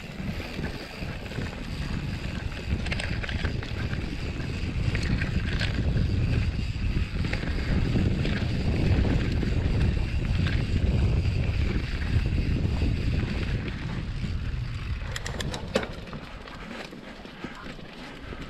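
Mountain bike rolling fast down a dirt trail: wind rushing over the camera's microphone with tyre and frame rattle, loudest midway and easing off near the end, with a few sharp clicks.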